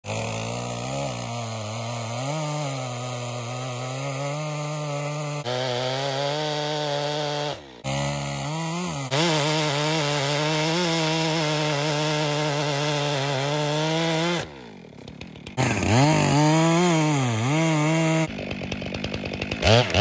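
Stihl chainsaw cutting into the trunk of a Douglas fir at full throttle, its engine pitch sagging and recovering under load. The sound jumps abruptly several times, and near the end the engine runs in short rapid pulses.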